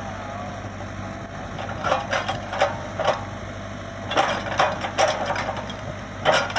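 Komatsu PC75UU excavator's engine running steadily, with irregular clanks and knocks starting about two seconds in.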